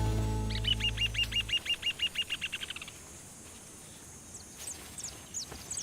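Bird call: a fast, even series of about fourteen repeated down-slurred notes lasting a little over two seconds, typical of a rufous hornero's rattling song. A few high, thin falling chirps follow near the end. Low background music fades out in the first second and a half.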